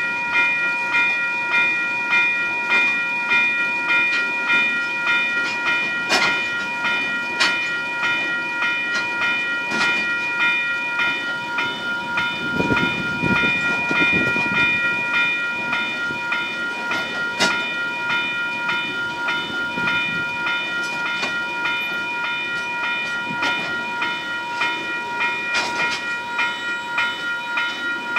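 Level crossing electronic bell ringing in a steady, quick repeating pulse, over a slow-moving coal train of loaded wagons rumbling past, with a few sharp clunks from the wheels.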